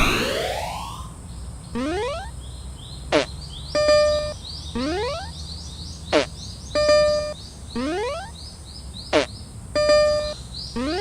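Stylized animated level-crossing warning sound: a rising electronic sweep, a short falling blip and a buzzy tone, repeating about every three seconds. Quick high chirps, like birds or insects, run underneath.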